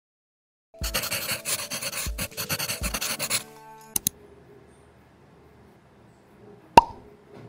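A short burst of music with a few beats, then, from about four seconds in, a pencil scratching faintly on paper as it draws lines, with a sharp click near the end.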